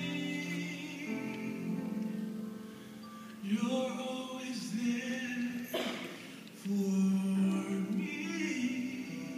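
A man singing a slow gospel song in long held notes, softer for a moment about three seconds in.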